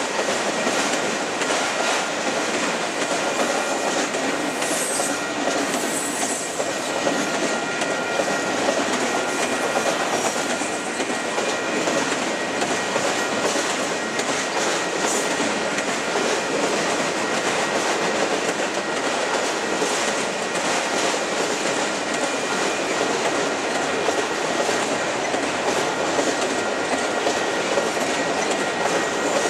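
Long freight train of enclosed autorack cars rolling past at speed: a steady, continuous rumble and clatter of steel wheels on the rails, with faint, steady high-pitched tones above it.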